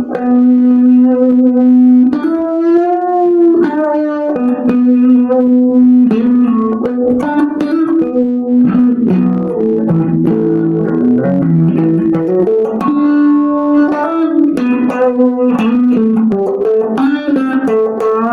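Electric guitar playing a single-note melody line, notes ringing one after another, with one note bent up and wavering about two to four seconds in.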